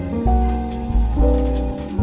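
Background music: a light acoustic-guitar-led track with bass and changing chords roughly every second.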